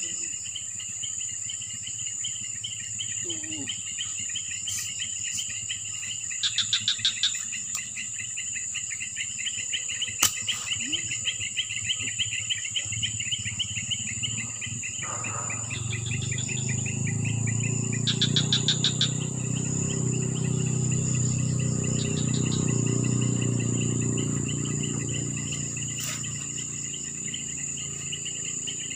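Insects chirring in swamp vegetation: a steady high-pitched drone with a fast pulsing trill beneath it, and short rhythmic chirp bursts about seven seconds in and again near nineteen seconds. From about fifteen seconds in, a low rumbling noise rises underneath.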